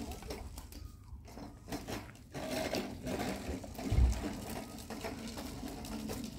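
Brushwood fire crackling, with many small scattered clicks and snaps, and one dull low thump about four seconds in.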